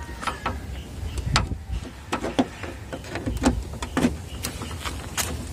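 Irregular clicks, knocks and scrapes of a screwdriver working the plastic screws and clips of a 1999 Honda CR-V's front grille loose.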